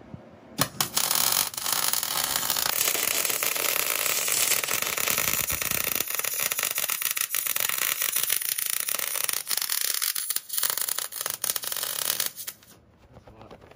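Electric arc welding a weld-on rock slider in place: the arc's steady crackling sizzle in one long run of about twelve seconds, starting about half a second in and stopping shortly before the end.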